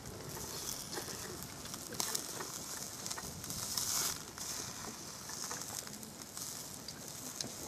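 Food sizzling on a small wood-fired grill, the hiss swelling about four seconds in as smoke rises, with a few sharp crackles from the fire.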